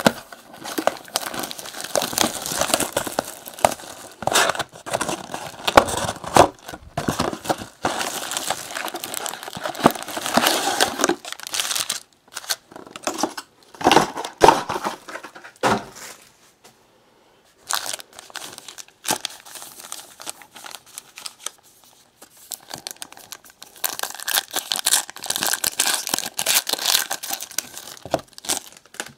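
Sealed Panini Select trading-card box being torn open and its foil card packs crinkling as they are pulled out and handled, with a short quiet pause partway through.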